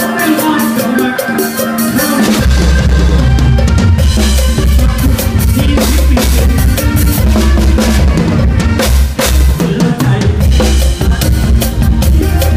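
Drum kit played hard in a live mor lam band, heard up close from the drummer's position, with kick, snare and cymbals over the band's guitars and horns. A heavy bass line comes in about two seconds in.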